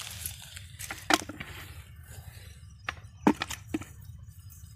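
Dry grass, dead leaves and netting crackling as hands work fish out of a cast net on the ground, with a handful of short sharp snaps scattered through it.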